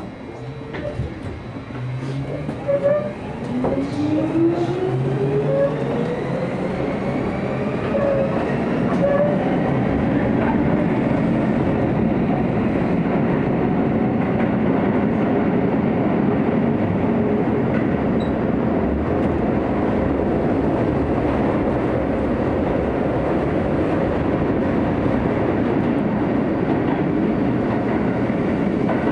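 Chiba New Town Railway 9000 series electric train heard from inside the car: the traction motors whine up in pitch over the first ten seconds or so as the train accelerates, then it settles into a steady rumble of wheels on rail through an underground tunnel.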